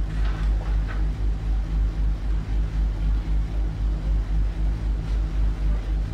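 Low throb of a ferry's engines, heard inside the ship, pulsing about four times a second.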